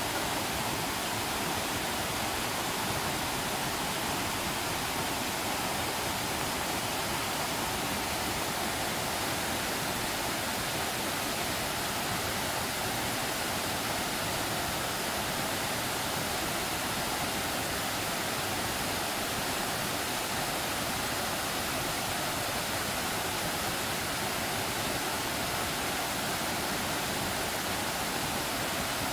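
Tiered waterfall cascading over rock ledges into a plunge pool: a steady, even rush of falling water.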